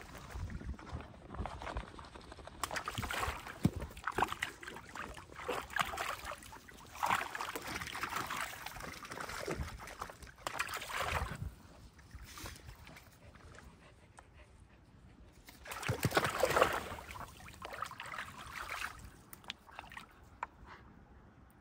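Water sloshing and splashing as a dog wades and paws about in a shallow plastic kiddie pool, in irregular bursts, with one louder burst of splashing late on.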